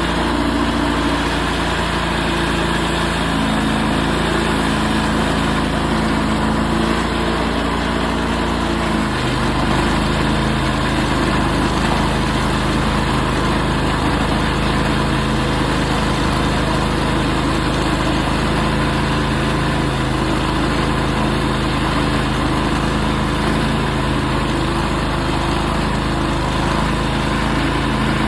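Portable sawmill's engine running steadily through a cut in a walnut log, its low note shifting about nine seconds in.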